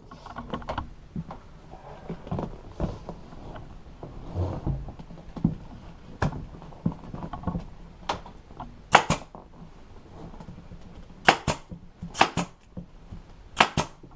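Pneumatic upholstery stapler driving 3/8-inch crown stainless staples through vinyl into a hard plastic seat base: about ten sharp shots from about six seconds in, most of them in quick pairs. Quieter handling noises come before them.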